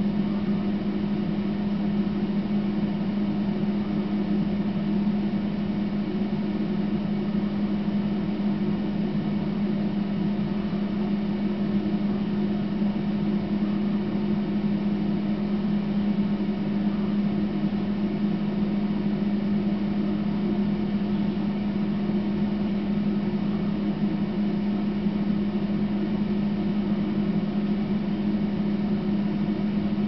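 A steady, unchanging low hum with an even hiss over it, like a machine running.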